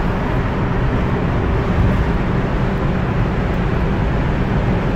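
Steady road noise of a car driving through a road tunnel, heard from inside the cabin: a constant engine and tyre rumble, heaviest in the low end.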